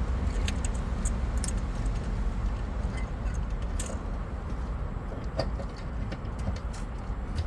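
Scattered small clicks and taps of plastic and metal fuel-pump fittings being handled, over a steady low rumble.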